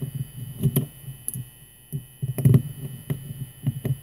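Small metal clicks and knocks of a deadbolt being taken apart as its two screws are backed out, in clusters with short gaps between.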